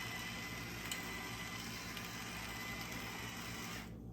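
Pan of sauce heating on the stove toward a boil: a steady faint hiss over a low hum, with a couple of faint ticks. The hiss drops away abruptly near the end.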